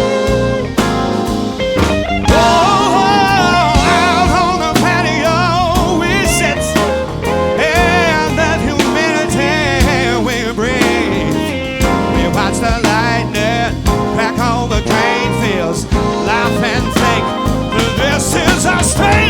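Live rock band playing an instrumental break: drums and bass keep the groove under a lead line of bent, wavering notes.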